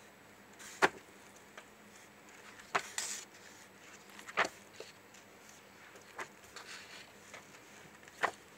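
Pages of a textbook being flipped: soft paper rustling broken by several sharp page flaps, spaced one to two seconds apart.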